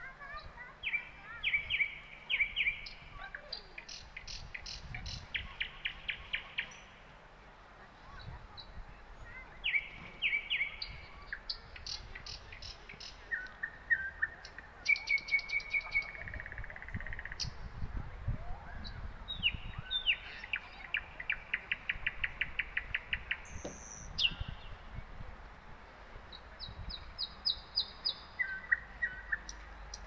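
Several small songbirds chirping and trilling, each song a quick run of repeated high notes, one run after another and sometimes two at once.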